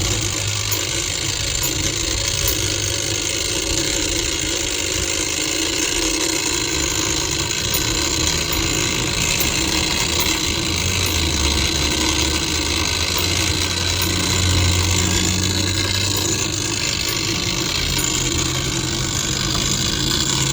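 Spring-wound clockwork of a Harrington-Seaberg street fire alarm box running after the pull, its code wheel ticking steadily as it sends out the box number, 523. A steady low engine hum runs underneath.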